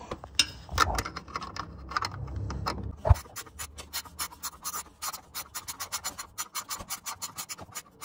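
Wrench clicking and ratcheting in quick repeated strokes as a nut on the shifter cable linkage bracket is tightened, with one sharper metal knock about three seconds in.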